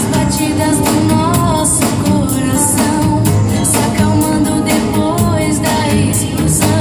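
Song with a singing voice over a steady beat and accompaniment.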